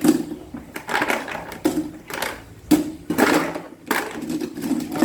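Consul Facilite 12 kg top-loading washing machine running, with a steady low motor hum and uneven swishing surges about once a second.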